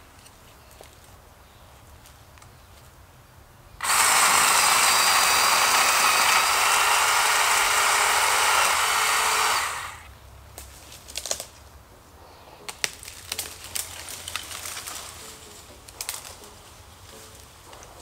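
Battery-powered chainsaw cutting into a small tree trunk for about six seconds, starting about four seconds in. It is a hinge cut, made partway through the trunk so the tree leans over but stays attached. After the saw stops comes a run of sharp cracks and snaps as the partly cut tree splits at the hinge and its branches break while it is pushed over.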